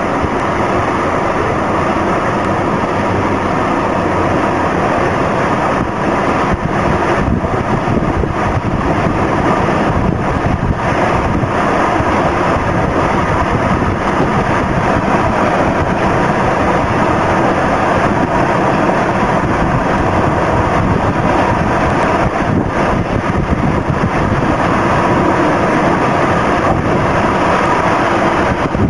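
A tornado's winds making a loud, steady rushing noise with no let-up.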